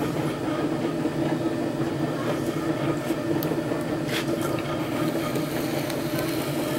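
Potter's wheel running with a steady mechanical hum, while wet clay is worked on it, with a faint scrape about four seconds in.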